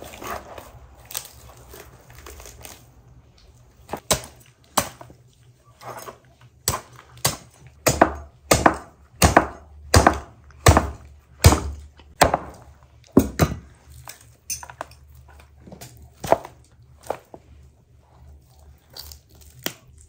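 Whole roasted lamb carcass being torn apart by hand: bones snapping and joints cracking in a run of sharp cracks and thuds that come about one and a half a second in the middle and thin out toward the end, with softer tearing of meat in the first few seconds.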